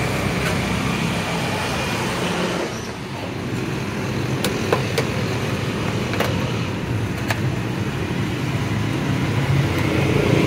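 Steady road-traffic and engine noise, with a low engine hum in the first few seconds. A few sharp clicks stand out in the middle.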